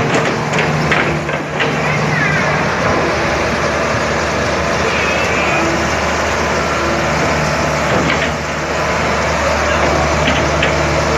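Heavy excavator's diesel engine running steadily, with a few short high squeals and metal clanks over it.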